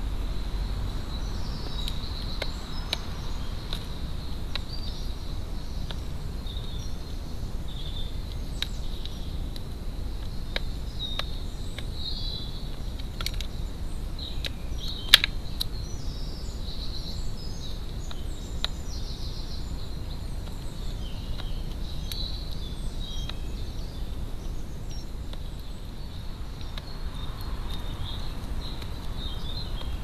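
Garden songbirds chirping and singing in the background over a steady low rumble of outdoor noise, with scattered sharp clicks; the loudest click comes about halfway through.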